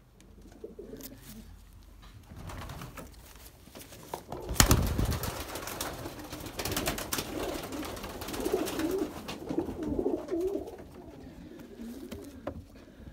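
Domestic pigeons cooing in a wooden loft, low wavering calls that come clearest a little past the middle. About four and a half seconds in, a sudden loud flurry of rustling starts and stays noisy for several seconds.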